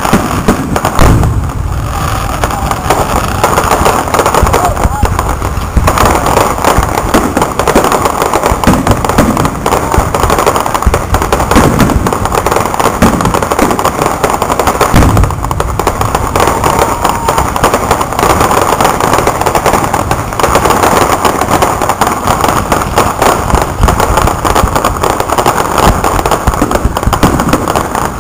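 Fireworks display: aerial shells bursting in a rapid, nearly continuous barrage of loud bangs and crackles.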